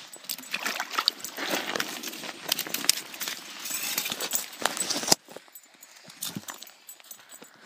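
Footsteps crunching through snow, with rustling and sharp clicks from the camera being handled; it goes quieter about five seconds in.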